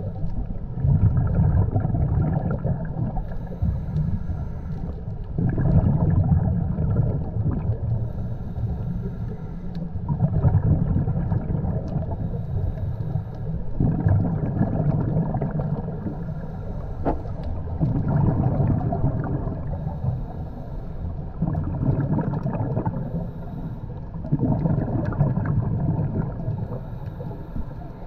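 Scuba regulator exhaust: a diver's exhaled air bubbling out in bursts of a few seconds, with short lulls between breaths, about every four seconds in an even breathing rhythm.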